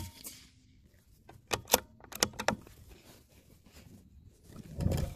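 The last of a .22 rimfire rifle shot fading at the start, then a quick run of sharp metallic clicks a second or so later as the bolt of the CZ452 bolt-action rifle is worked to chamber the next round. A low thump of the rifle being handled comes near the end.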